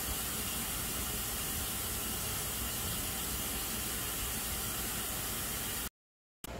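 Steady high-pitched background hiss with no other events, dropping to dead silence for about half a second near the end before a quieter room tone starts.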